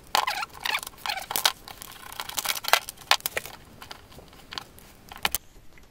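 Handling noise: irregular rustling and crackling with scattered sharp clicks and small knocks, as objects are picked up and moved about by hand.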